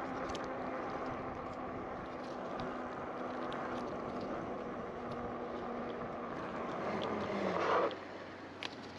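Steady road traffic heard from a moving bicycle. A vehicle passes close, growing louder about seven seconds in and dropping off sharply just before eight seconds, with a sharp click near the end.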